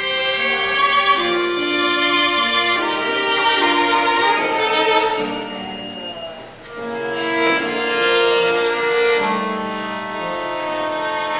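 Bowed strings, violin-like, playing a slow melody in long held notes, with a short break in the phrase about six and a half seconds in.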